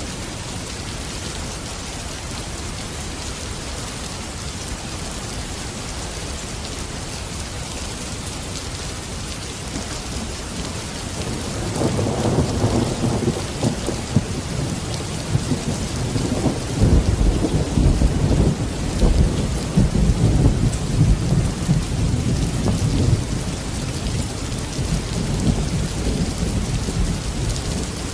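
Steady rain, with a long roll of thunder rumbling in about twelve seconds in, loudest in the middle and fading toward the end.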